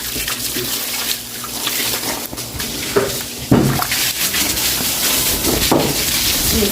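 Broom scrubbing a wet floor while water runs and splashes: a steady watery hiss broken by many short scrapes of the bristles.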